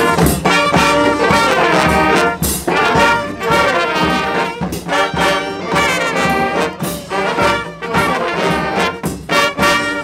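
Street brass band playing a lively tune: trumpets, trombones, saxophones and clarinets over a sousaphone, with steady percussion hits marking the beat.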